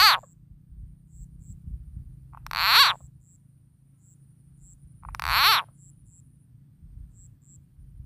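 Rice-field frog calling: three short, loud calls about two and a half seconds apart, each falling in pitch at its end.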